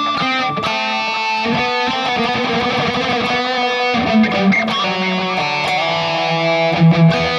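Distorted electric guitar lead played through a Mooer Prime S1 modeling unit on a high-gain ENGL Powerball amp preset: held notes with vibrato mixed with quick runs of notes.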